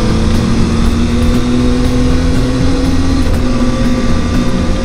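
Motorcycle engine running at a steady cruise while riding, with wind and road noise.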